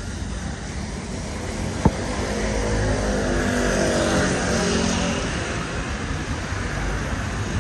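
A motor vehicle passing along a wet street: engine note and tyre hiss swell to a peak around the middle and fade away, over a steady traffic hum. A single sharp click sounds just before two seconds in.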